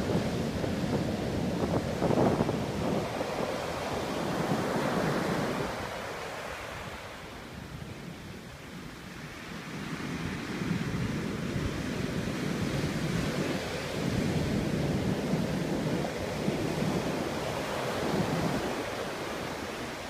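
Atlantic surf breaking and washing up a sandy beach: a steady rush of water that swells and ebbs with each wave, with a quieter lull about a third of the way through.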